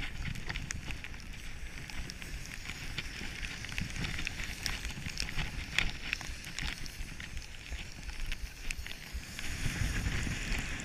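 Head alpine skis hissing and scraping over packed snow on a downhill run, with scattered sharp ticks. Wind rumbles on the microphone underneath; the hiss and rumble swell about ten seconds in.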